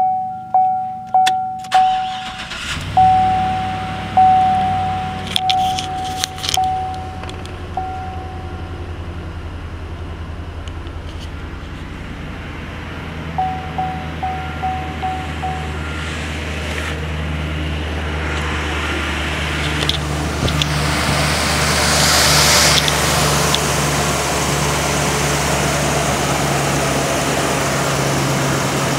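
Truck dashboard warning chimes ping, then a 6.0-litre L96 Vortec V8 starts about three seconds in and settles into a steady idle. The chimes come back in short runs, and near the end the engine is heard louder from the open engine bay.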